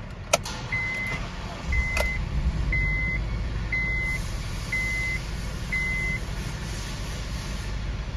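A car's electronic warning chime beeps six times, about once a second, over the low rumble of the running engine. The rumble grows louder about two seconds in, and there are two sharp clicks, one near the start and one about two seconds in.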